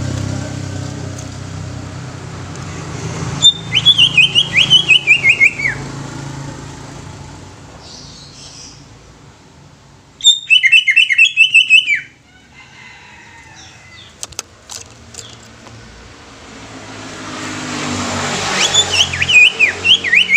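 Green leafbird (cucak ijo) singing three phrases of quick, falling whistled notes, each lasting about two seconds, with pauses between them. A low motor hum fades away at the start and swells again near the end.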